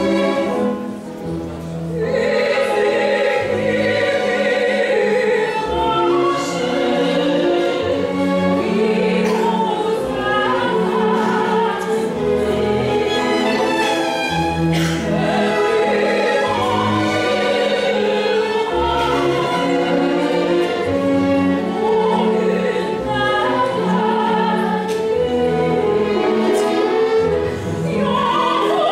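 Chamber string orchestra of violins, cellos and double bass playing classical music, accompanying a female operatic singer.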